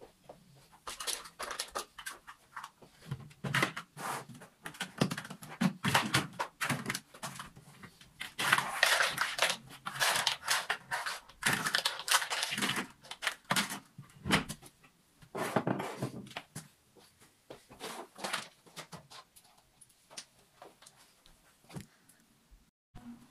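Irregular rustling, clattering and knocking of household things being handled and put away while tidying a room, busiest in the middle.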